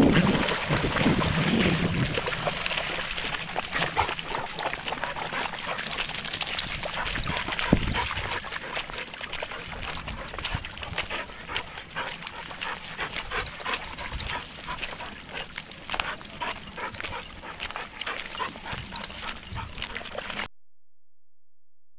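A pack of dogs splashing through shallow water and scrambling out along the bank, with many short splashes and scuffs. Wind buffets the microphone for the first couple of seconds, and the sound cuts off suddenly near the end.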